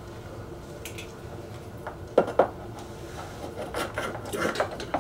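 A measuring stick handled against a tabletop and a plastic collectible figure while taking the figure's height: two sharp knocks a little after two seconds, then a run of short scrapes and rubs near the end.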